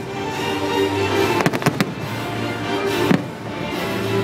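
Aerial fireworks bursting with sharp bangs over music: one right at the start, a quick run of several about a second and a half in, and another about three seconds in.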